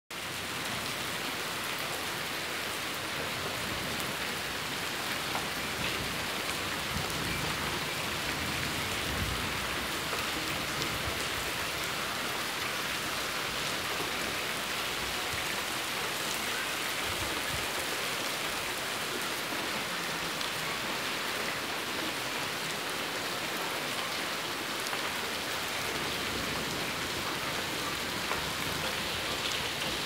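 Steady heavy rain falling, an even dense hiss of drops on the ground, leaves and paving.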